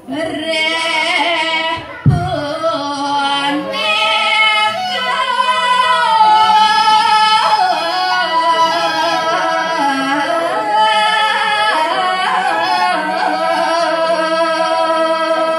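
A woman singing a Balinese geguritan verse solo, in long held notes with wavering, ornamented turns. There is a brief low thump about two seconds in.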